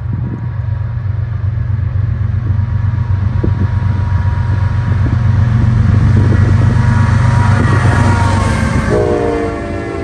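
CSX diesel freight locomotives approaching and passing close by, the low engine rumble growing steadily louder. About nine seconds in, the locomotive horn sounds a chord of several steady tones.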